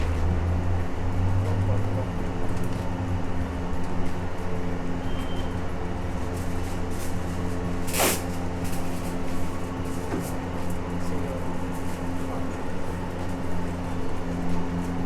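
Roadside street ambience: a steady hum of vehicle engines and traffic noise with indistinct voices, and one short sharp hiss about halfway through.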